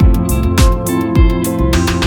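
Background music with a steady beat, about one low drum hit every 0.6 s, under held pitched notes.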